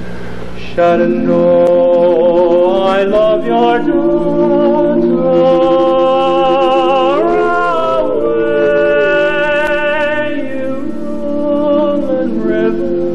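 Barbershop quartet of four men singing a cappella in close harmony, holding long sustained chords that shift together, growing louder about a second in.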